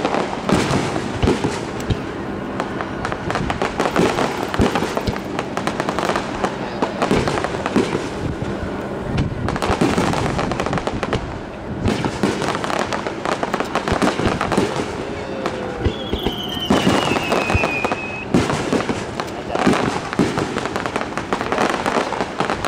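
Aerial fireworks shells bursting in a dense, continuous barrage of bangs and crackling stars. About three-quarters of the way through, a high whistle falls in pitch.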